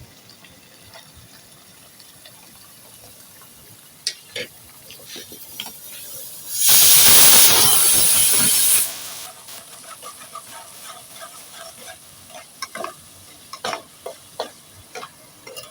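Spiced masala frying in a kadai, stirred with a spatula that scrapes and clicks against the pan. About two-thirds of the way through, a loud hiss starts suddenly, lasts about two seconds and cuts off.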